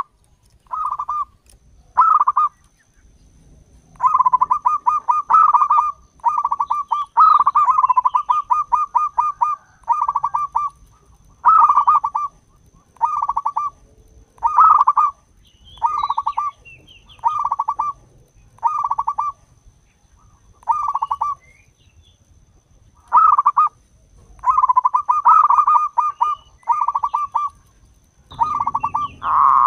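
Zebra dove (perkutut) cooing: rapid trilled coos, some in long runs of notes and others in short phrases about a second and a half apart. A faint thin high tone sits behind it.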